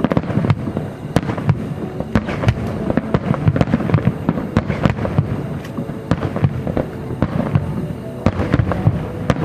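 Aerial fireworks shells bursting in rapid succession, many sharp bangs a second over a continuous rumble.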